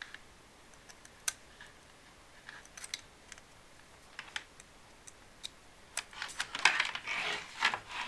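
Scattered light clicks and taps of a USB keyboard and its adapter being handled and set in place, with a busier spell of clicking and rustling near the end.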